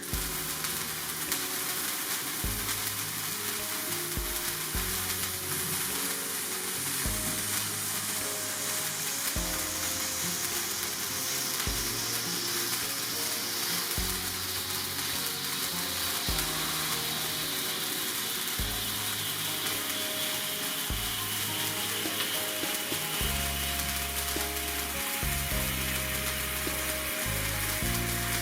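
Birthday cake candle sparkler burning with a steady, dense crackling hiss, over background music with a changing bass line.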